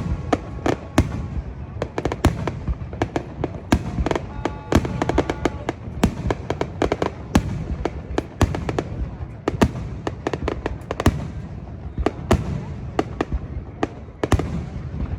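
Fireworks going off: an unbroken series of sharp bangs and crackles, several a second, at uneven intervals.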